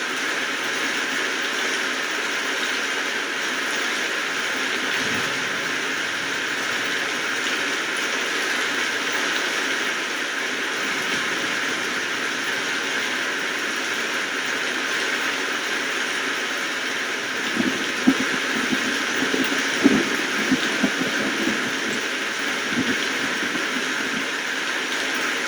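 Steady rain falling, an even hiss. From about two-thirds of the way in, a few seconds of louder drops land with short knocks.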